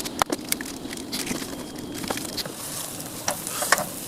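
Scattered sharp clicks and knocks of camp cooking gear being handled, over a steady hiss.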